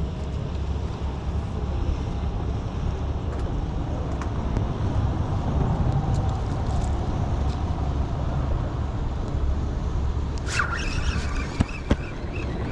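Steady low outdoor rumble, with a short higher-pitched call about ten and a half seconds in and two sharp clicks a moment later.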